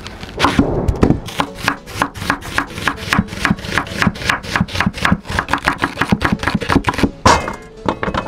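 Chef's knife slicing through an onion onto a wooden cutting board: a fast, even run of cuts, about four a second. Near the end a louder clatter as the onion slices are tipped into a metal pot.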